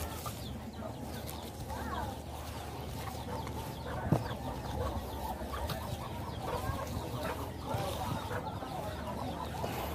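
Chickens clucking, many short calls scattered throughout, with one sharp knock about four seconds in.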